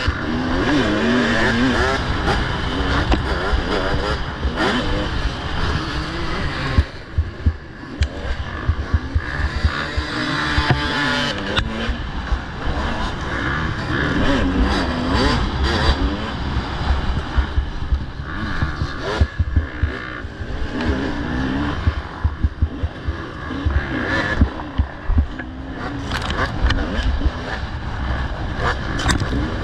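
Off-road motorcycle engines revving, the pitch rising and falling again and again as the throttle opens and closes.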